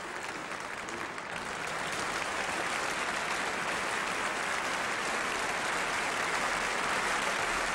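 Audience applauding, growing louder about two seconds in and then holding steady.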